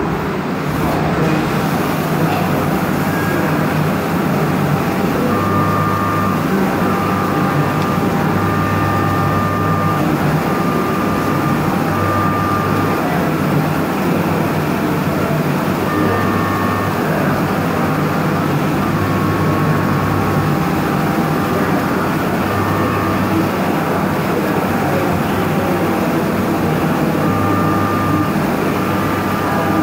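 CNC machining centre roughing aluminium under flood coolant with a 16 mm four-flute carbide end mill at high spindle speed: a steady rush of cutting and coolant spray. A humming tone comes and goes every second or so through the cut.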